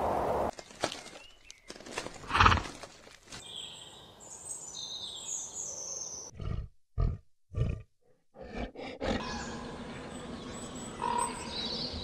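A large wild animal roaring and growling in short separate bursts, the loudest about two and a half seconds in, with high bird chirps around the middle.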